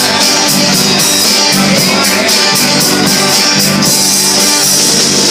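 Rock band playing an instrumental passage: electric guitar over a drum kit with a steady beat.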